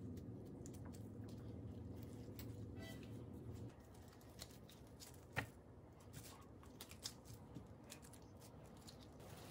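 Faint handling sounds of gloved hands tearing and squeezing rice-cake dough: soft rustles of plastic gloves and wrap with small scattered clicks, one sharper click about halfway through. A low hum under the first few seconds stops abruptly about four seconds in.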